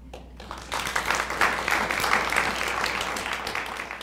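Audience applauding, building up about a second in and tapering off near the end.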